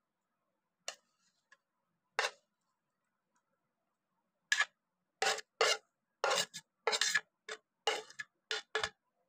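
Metal spoon scraping and knocking against a ceramic dish as masala-coated onion rings are pushed out onto a plate. A few single scrapes, then a quick run of about a dozen short strokes in the second half.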